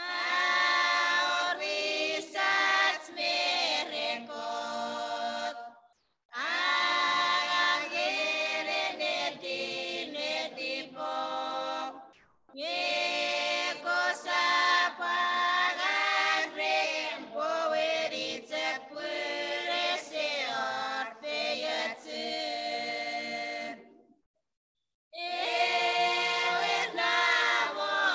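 A small group of women singing a hymn together in Chuukese, unaccompanied, in phrases of about six seconds with brief silent breaks between them.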